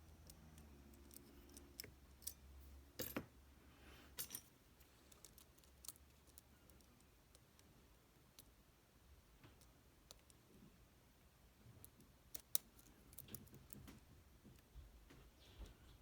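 Faint, scattered small clicks and ticks of metal tools working in a Tesa TK100 lock, with a few sharper clicks, one about three seconds in, one about four seconds in and one past twelve seconds.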